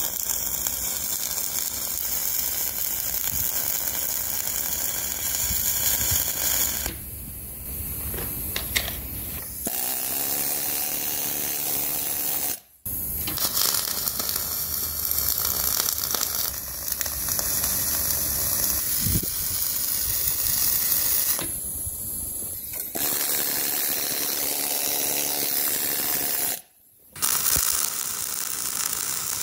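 MIG welding arc crackling steadily as a steel trunnion ball mount is welded onto the grader's A-frame, the arc breaking off briefly several times between runs.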